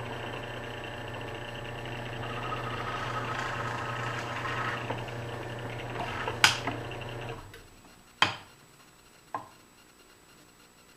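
Drill press motor running with a steady hum while a 3/16-inch bit bores a hole through a small wooden block, the pilot hole for quarter-inch threads. A sharp click comes about six and a half seconds in, the motor winds down soon after, and two knocks follow.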